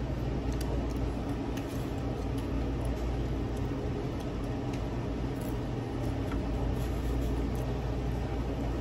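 Steady low mechanical hum of restaurant dining-room equipment, with faint scattered clicks from eating.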